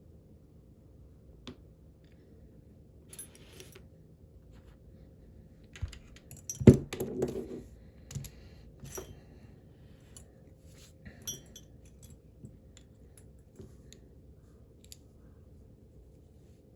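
Small metal parts of a steel padlock being handled and set down on a work surface: scattered light clicks and clinks, with a short flurry of louder knocks and rattles about halfway through.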